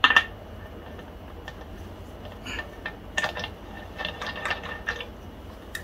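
Light, irregular clicks and scrapes of a compressor's air intake filter being screwed by hand into the pump's aluminium head, with its threads catching and turning.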